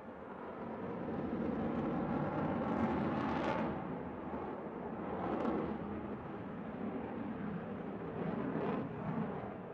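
Jet engine noise from a twin-engine fighter flying thrust-vectoring manoeuvres. It swells about a second in and is loudest around three and a half seconds, with further surges near five and a half and nine seconds.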